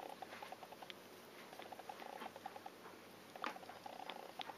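A four-week-old kitten licking and sucking on a person's fingers: faint, quick rhythmic wet clicking, several small clicks a second, with a few sharper clicks in between.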